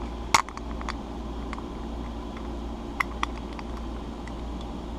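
A few sharp clicks and taps of small metal door-lock parts being handled and fitted together: the loudest about a third of a second in, a couple of lighter ones just after, and two more about three seconds in. Under them runs a steady background hum.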